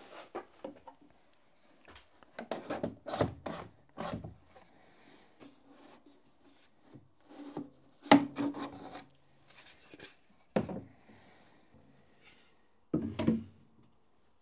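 Plastic dust-hose couplings being twisted, scraped and pulled off the inlet of a CamVac dust extractor. The sound is a series of knocks and rubbing scrapes, with a cluster a couple of seconds in, the loudest about eight seconds in, and single knocks later.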